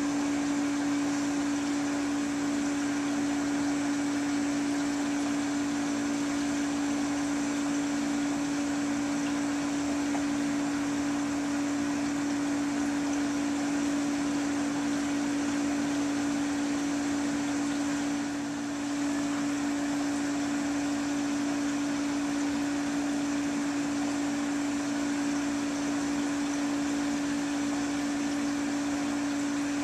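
Steady hum of reef aquarium equipment running: one strong low tone over an even hiss, dipping briefly about two-thirds of the way through.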